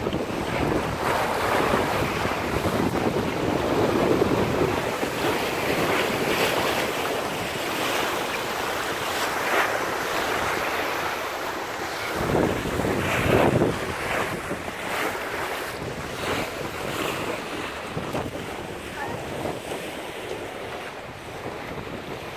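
Wind buffeting the microphone over choppy sea washing and splashing against a sailing yacht under way, with a louder surge about twelve to fourteen seconds in.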